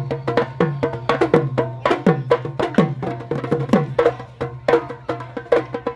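Music with a steady, quick percussion beat: sharp woodblock-like clicks over low drum hits whose pitch drops after each stroke, with held tones underneath.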